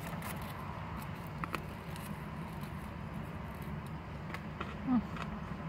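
Biting into and chewing a banh mi on crusty baguette bread: scattered soft crunches and mouth clicks over a steady low hum, with a short hum of the voice about five seconds in.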